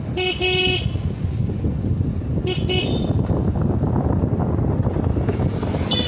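A vehicle horn beeps twice in quick succession just after the start and twice more, shorter and fainter, about two and a half seconds in, over the steady low rumble of a moving vehicle and wind.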